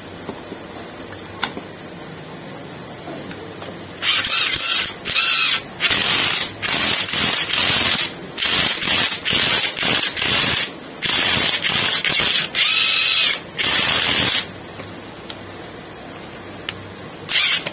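Powerbilt PBT-CL-WR21 cordless 3/4-inch impact wrench run with no load, its trigger pulled in about a dozen short bursts of motor and gear whir from about four seconds in to about fourteen seconds, some with a rising whine as the motor spins up. It is a test run after its DC motor and switch board were replaced, and the wrench runs normally.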